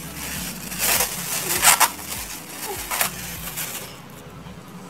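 Thin clear plastic disposable gloves crinkling and rustling as they are pulled off the hands and bunched up, in several short bursts.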